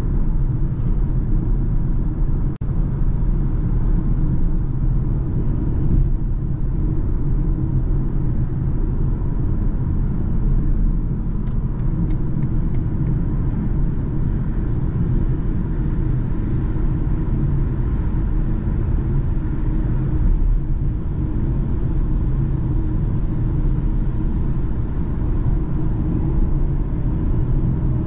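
BMW car heard from inside the cabin cruising steadily at motorway speed: a low, even engine hum mixed with tyre and road rumble.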